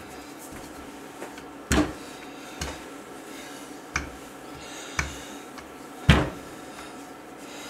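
Marble rolling pin knocking against a stone countertop while rolling out dough: five separate sharp knocks, the loudest about two seconds in and near the end, over a faint steady background.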